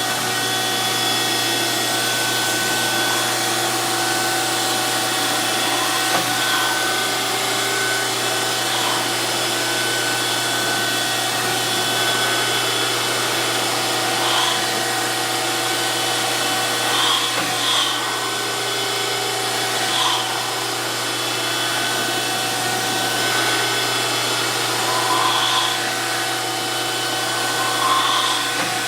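DoAll 14-inch surface grinder running, its wheel grinding with coolant on. It makes a steady hum and hiss, with several short louder moments through the pass.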